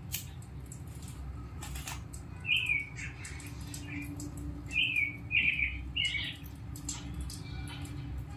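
Birds chirping: a run of about six short, high chirps in the middle, over a low steady background hum.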